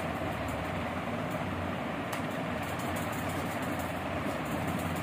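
Steady background drone with hiss and a low hum, unchanging throughout, with faint scattered light clicks of playing cards being handled.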